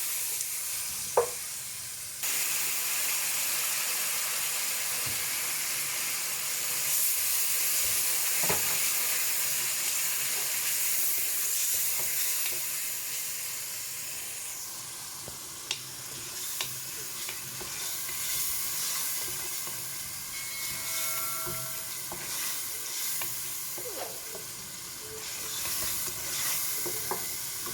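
Food frying in hot oil in a pot, a steady sizzle that gets louder about two seconds in, with a few sharp clicks.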